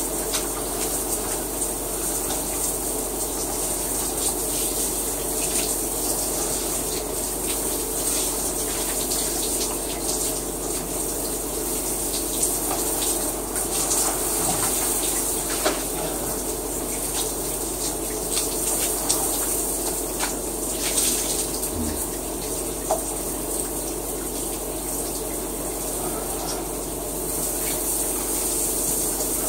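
Shower running: a steady hiss of water spraying down, with short sharp clicks and knocks scattered through the middle of the stretch.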